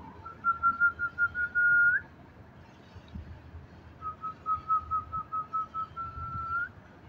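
A person whistling twice on one pitch: each time a run of quick short pips, about six a second, then a held note that rises at the end, a call whistle to a dog.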